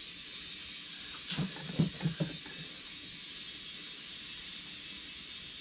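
Steady hiss of compressed air filling a front tractor tire while its bead seats on the rim, with a quick run of four or five short, sharp sounds about a second and a half in.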